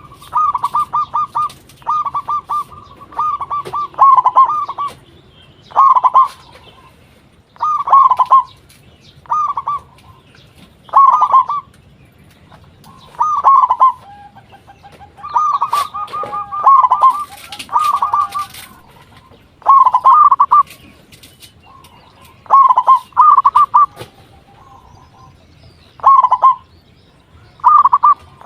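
Zebra dove (perkutut) cooing: short phrases of rapid, clipped coos, repeated every second or two.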